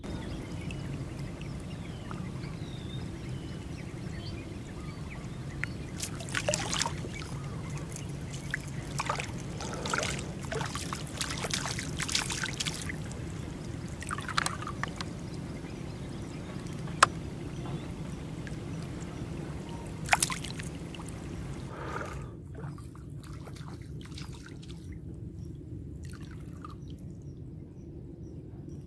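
Water trickling and sloshing in irregular bursts, thickest through the middle, with a few sharper splashes later on, over a steady low rumble.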